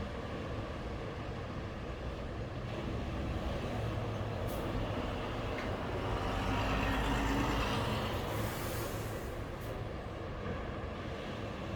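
Ocean waves breaking on a beach: a steady surf rumble that swells as a wave builds and breaks about seven seconds in, then hisses as it washes up and eases off.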